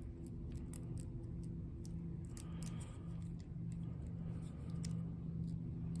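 Lock pick working the pins inside a small Lockwood padlock's cylinder under a tension wrench, making light, irregular metallic ticks and brief scrapes over a steady low hum.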